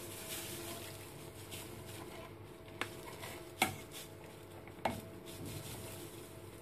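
Ladle stirring hot broth in a stainless steel pot as gelatin powder is poured in, knocking sharply against the pot three times about a second apart, the middle knock loudest. A faint steady hum runs underneath.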